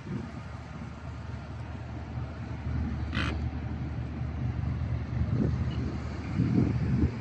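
Low, steady drone of a river cruise boat's engine, with wind buffeting the microphone in uneven gusts. A brief high hiss comes about three seconds in.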